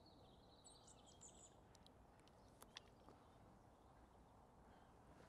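Near silence: faint outdoor ambience with a few brief, high bird chirps about a second in, and one small click a little past the middle.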